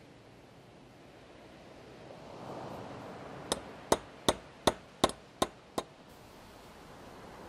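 Seven quick, evenly spaced hammer taps, about three a second, on a wooden stick held against a bent copper ashtray tab resting on a bolt in a vise, to flatten the tab.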